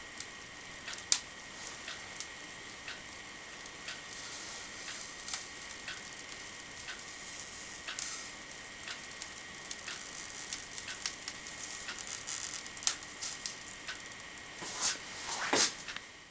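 Home-made hot wire cutter drawing its heated wire through a styrofoam block. Faint irregular ticks and crackles sound over a steady high tone, growing busier towards the end, with a louder scrape about a second before the end.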